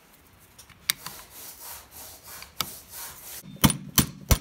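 Faint handling of cast-iron lathe parts, then, from about three and a half seconds in, a quick run of sharp metallic taps: a small brass mallet driving the pin into the indexing arm of a 1947 South Bend lathe apron.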